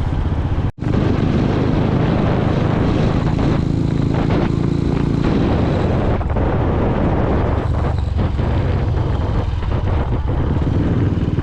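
Engine of a moving vehicle running steadily on the road, a dense low rumble with road noise. It cuts out for an instant just under a second in.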